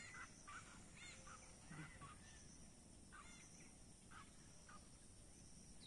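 Faint birdsong: scattered short chirps and whistled calls, several to the second at times, over a steady faint hiss.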